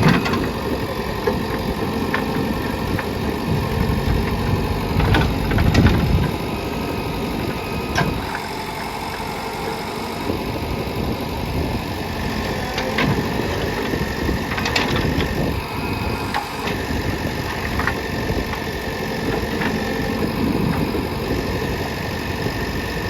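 Heavy diesel engine running steadily, louder for the first few seconds, with a few short metallic knocks scattered through it.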